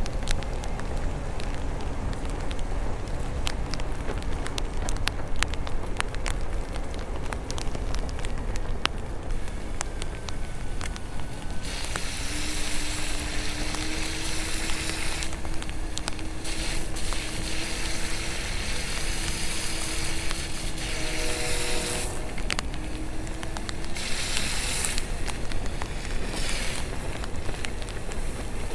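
Electric unicycle tyre hissing over wet pavement and through water in stretches that come and go, over a steady low rumble.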